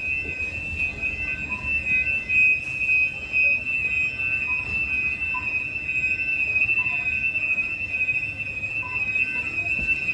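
Fire alarm sounders giving a continuous, steady high-pitched tone during a test of the alarm system, over a low background rumble.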